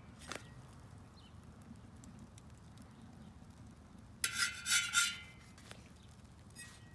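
A metallic scrape of three quick strokes across the stainless steel cooking disc on a rocket stove, about four seconds in and lasting under a second.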